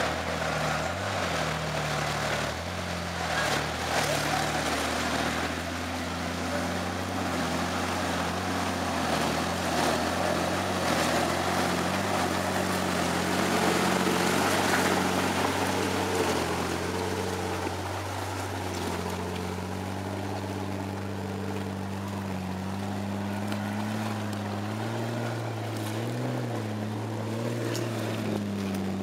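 Off-road Jeep Wrangler's engine working under load, revving up and down. It is loudest around the middle, then settles to a lower, steadier note after about 18 seconds.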